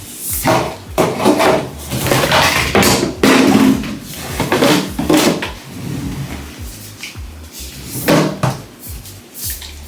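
Plastic hair-conditioner bottles being handled and set down on a hard surface, a string of knocks and rubbing clatter, strongest in the first half and again near the end, over background music with a steady bass beat.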